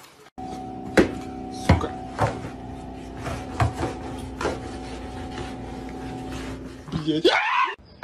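A long pole knocking sharply under a refrigerator, about one knock every 0.7 s, over a steady hum. A brief rising squeal comes about seven seconds in.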